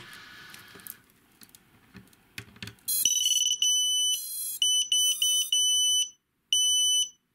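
Walkera Rodeo 110 racing quadcopter's beeper sounding its power-up beeps on battery connection: a loud series of high electronic beeps, some long and steady and some in quick runs, starting about three seconds in. Light clicks of the connector being handled come before it.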